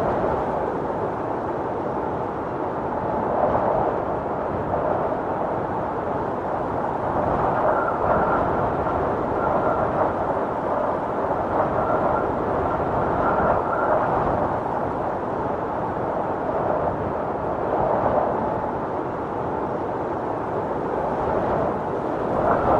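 Storm wind blowing hard and continuously, swelling in gusts every few seconds, with a faint high whistle coming and going in the middle.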